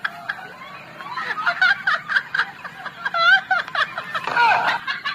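A person snickering and giggling in a high voice, in short broken spurts.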